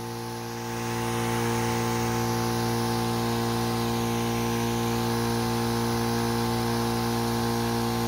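Firman FKS16 battery knapsack sprayer's 12 V diaphragm pump running steadily with a hum, with the hiss of the nozzle spraying a fine mist. It gets louder about a second in, then holds steady at full pressure on its newly fitted 9 Ah battery.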